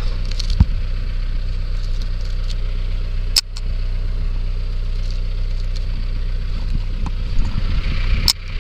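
Vehicle engine idling with a steady low hum. A sharp click with a brief dropout comes about three seconds in and again near the end.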